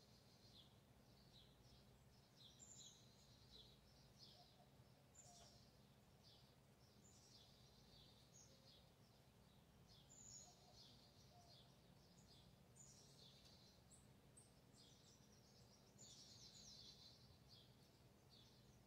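Faint birdsong: short high chirps and quick falling calls repeating every second or so throughout.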